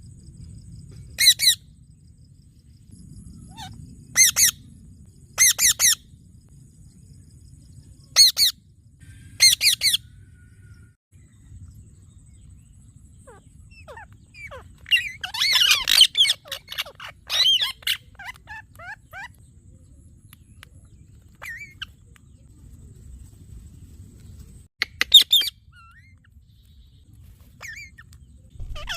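Parrot giving short, shrill calls, singly or in quick pairs every few seconds, with a longer run of chattering, warbling calls about halfway through.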